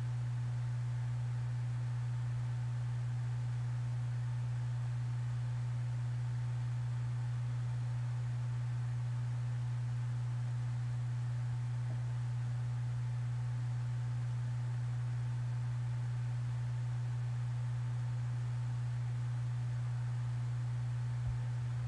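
A steady low electrical hum, one unchanging tone with fainter overtones above it, with a couple of small low bumps near the end.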